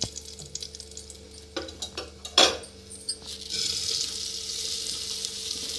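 A few clicks and knocks of a spatula and steel plate against an aluminium pressure cooker, one of them louder, then about three and a half seconds in a steady sizzling hiss begins as washed rice is tipped into cumin seeds frying in hot butter.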